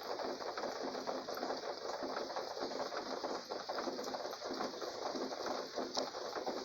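Steady rain falling at night, a dense, even hiss of countless small drop impacts.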